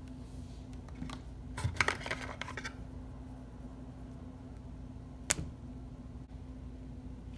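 Small plastic makeup packaging being handled: a second or so of tapping and rattling, then a single sharp click about five seconds in as the cap is pulled off a felt-tip liquid eyeliner pen. A steady low hum runs underneath.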